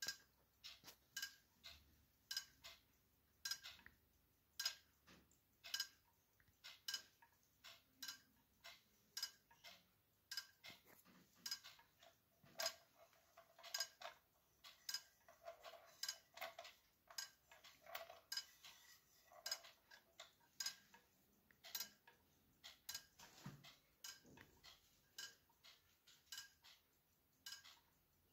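Schatz quartz pendulum wall clock ticking: faint, quick, evenly spaced clicks.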